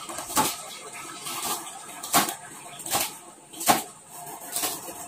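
Cleaver chopping vegetables on a plastic cutting board: about five uneven knocks, the loudest about three and a half seconds in.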